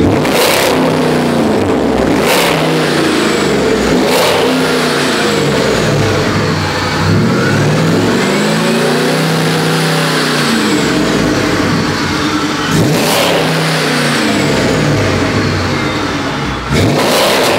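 Hemi V8 of a turbocharged Cherokee with a 3-inch exhaust and X-pipe, revved over and over. The exhaust note rises and falls with each rev, with a few short, sharp hissing bursts in between.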